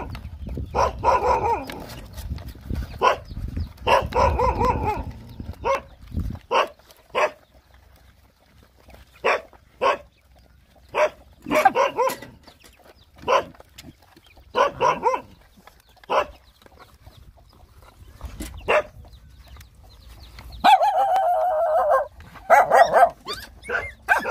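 Several dogs barking and yipping in short, separate bursts, with a longer wavering call about three seconds before the end.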